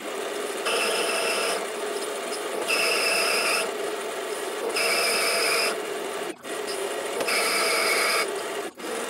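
Metal lathe running and cutting a brass rod. A high-pitched ringing cutting sound comes in for about a second at a time, four times at roughly two-second intervals. The sound breaks off briefly twice near the end.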